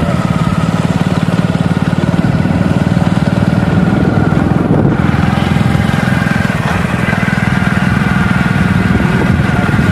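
Motorcycle engine running steadily while riding along, with its fast, even firing pulse.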